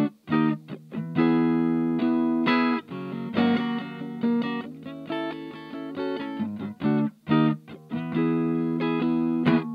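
Electric guitar played through a 2-watt Little Rebel amp kit driving a Jensen CR8 speaker: chords ringing out one after another, with a few short breaks between them.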